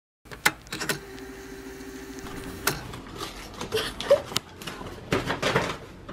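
McDonald's paper takeout bag rustling and crinkling as hands open it and dig inside, with a few sharp clicks near the start and a faint steady hum for a second or two.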